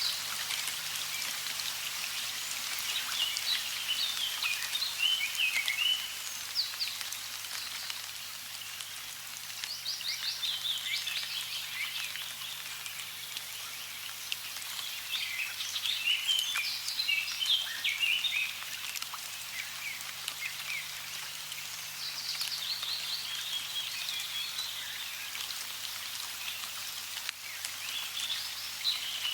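Running water with birds singing over it: a steady rush of water, and phrases of quick high chirps that come in bursts every several seconds, four or five times.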